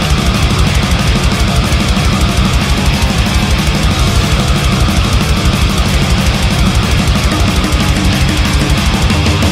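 Heavy metal band recording: distorted electric guitars over rapid, driving drumming, many drum strikes a second, with no vocals yet.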